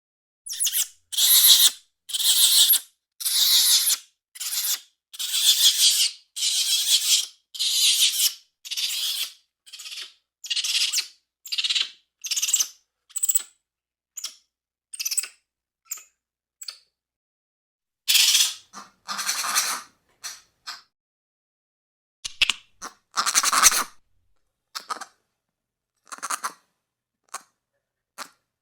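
A series of short, high-pitched compsognathus chirps and screeches from a creature sound-effect set, one after another with brief silent gaps between them. The later calls are shorter and quieter, and a few longer, louder screeches come near the end.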